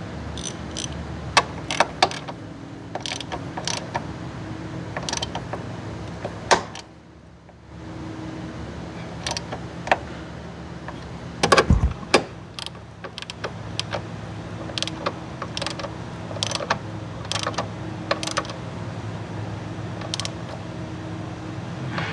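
Irregular metallic clicks and knocks of hand tools and parts being handled during car suspension work, over a steady low hum. A short cluster of louder knocks comes about halfway through.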